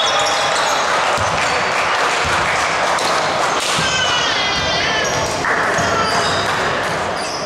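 Basketball game in play: a ball bouncing on the court and short high squeaks of shoes, over a steady din of voices.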